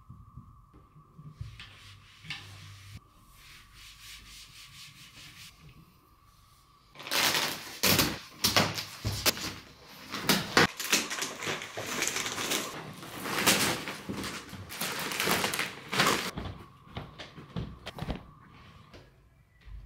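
Clear plastic wrapping on a rolled rug crinkling and crackling as it is handled and pulled off. The loud, irregular crackle with sharp snaps starts about seven seconds in and lasts some nine seconds, after fainter rustling.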